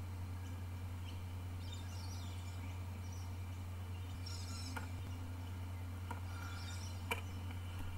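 Steady low hum under faint bird chirps that come and go, with a few light clicks in the second half.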